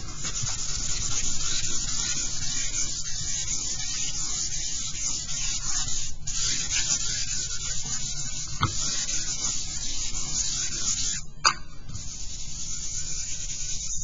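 Stick of charcoal scribbling back and forth across a sheet of paper, a continuous dry scratching hiss with two short breaks, laying down a solid charcoal ground to draw into. A couple of sharp ticks, the louder one about eleven seconds in.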